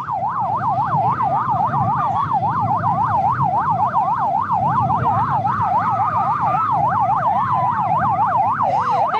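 Emergency-vehicle siren in a fast yelp, sweeping up and down about four times a second, over a low rumble.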